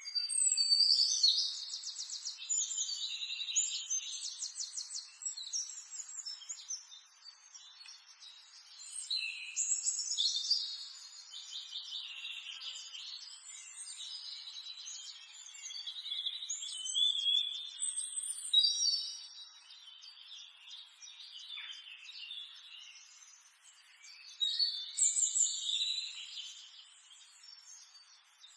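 Birds singing: phrases of quick high chirps and trills that come and go every few seconds, with no engine running.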